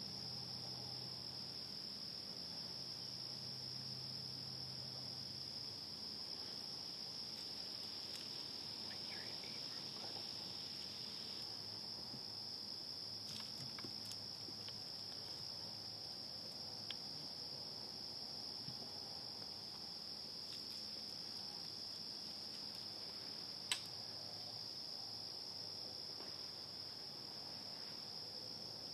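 Crickets trilling in a steady, high-pitched chorus, with a single sharp click late on.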